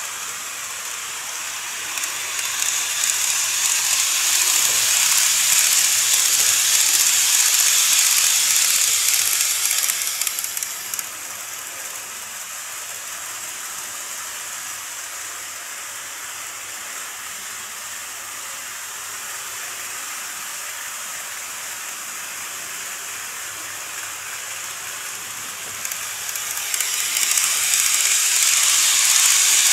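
N-scale model train running on plastic track: a steady hiss of wheels and motor. It is louder for several seconds early on, drops back to a softer hiss in the middle, and swells again near the end as the train passes close by.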